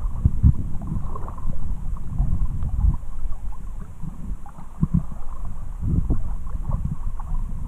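Shallow river water lapping and gurgling right at a camera held at the surface, heard as an uneven, muffled low rumble with small splashes.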